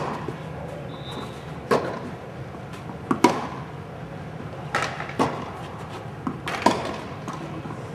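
Tennis ball being hit by rackets and bouncing on the court: sharp pops every second or so, a couple of them in quick pairs, over a steady low background hum.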